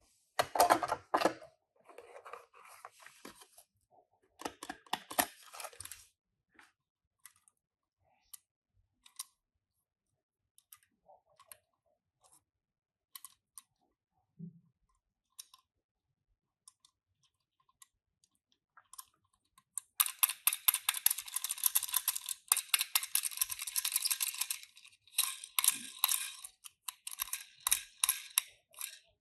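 Hands handling a toy car's packaging: scattered clicks and short rustles at first, a few faint ticks, then from about two-thirds of the way in a long stretch of dense crinkling and rustling of packaging.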